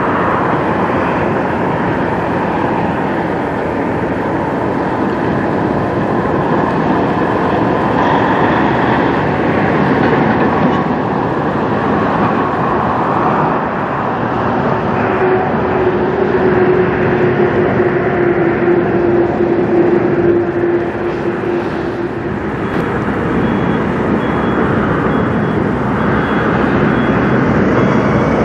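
Freightliner Cascadia semi-truck's diesel engine running as the tractor-trailer drives slowly past, with tyre and road noise. A steady drone sits in it for several seconds around the middle.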